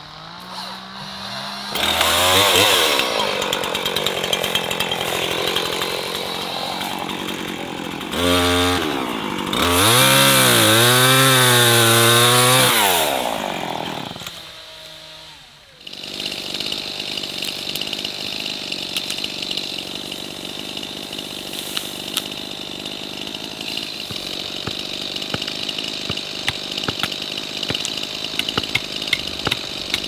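Two-stroke chainsaw ticking over, then revved hard in bursts, its pitch wavering under load as it cuts into hedge stems. After a cut, a steadier buzzing of the saw runs with small crackles of wood and twigs.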